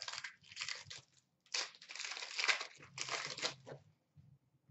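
Crinkling and rustling of trading-card packs and cards being handled, in two spells: one in the first second, then a longer one lasting about two seconds before it stops near the end.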